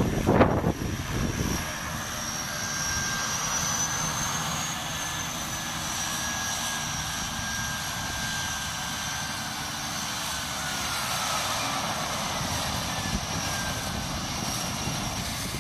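The single-engine skydiving plane runs as it taxis across the grass: a steady high whine over propeller and engine noise, its pitch sinking slowly near the end. Wind buffets the microphone for about the first second.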